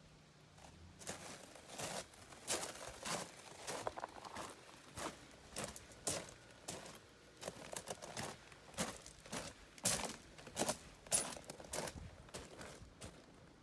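Footsteps on crushed gravel at a walking pace, about two steps a second.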